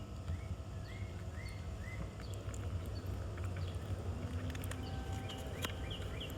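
Small birds chirping, a run of four quick rising-falling chirps followed later by higher chirps, over a steady low rumble of outdoor background noise, with a few sharp clicks.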